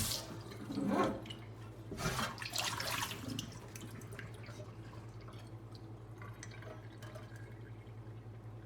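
Water from a sink tap stops, followed by a few splashes and drips as a cast iron skillet is rinsed, then faint drips over a low steady hum.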